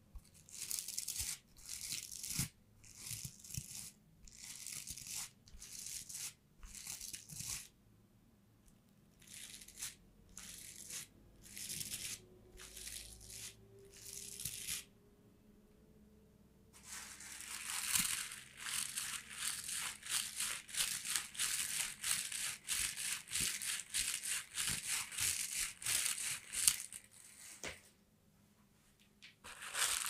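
Toilet brush bristles scratched close to the microphone, first in short separate strokes, then after a brief pause in a quick, unbroken run of scrubbing strokes for about ten seconds, stopping shortly before the end.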